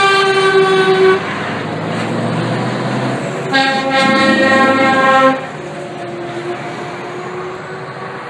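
Air horns of passing articulated-lorry tractor units sounding in two long blasts, the first cutting off about a second in and the second running from about three and a half to five seconds, each sliding slightly down in pitch as the truck goes by. Truck engine and tyre noise run steadily underneath.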